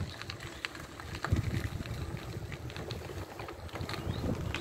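Wind buffeting the microphone of a moving bicycle, a rough low rumble, with scattered short clicks and rattles from the bike and path.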